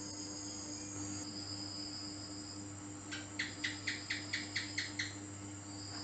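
House gecko (cicak) calling: a quick run of about eight sharp chirps, about four a second, starting about halfway through. A steady high insect trill runs underneath.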